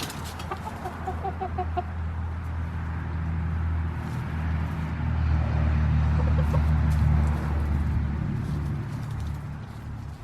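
Backyard chickens clucking, a quick run of short notes about half a second in and a few more past the middle. Under them a low rumble swells, is loudest past the middle and fades near the end.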